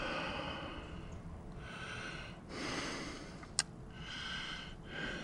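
A man breathing in and out close to the microphone, about one breath a second, with one sharp click about three and a half seconds in.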